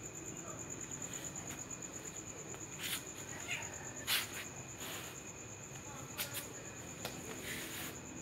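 A cricket chirping in a steady, high, rapidly pulsing trill. A few short bursts of noise break in over it, the loudest about four seconds in.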